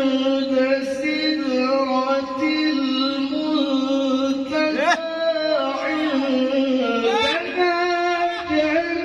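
Male qari's melodic Qur'an recitation (tilawah), amplified through a handheld microphone: long held notes broken by quick ornamented turns about five seconds in and again near the end.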